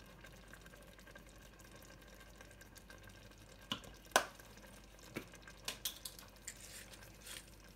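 A few light clicks and taps at a pot of chili on the stove, over a faint steady background, as more paprika is added; the two sharpest come a little under four seconds in, with smaller ones over the next few seconds.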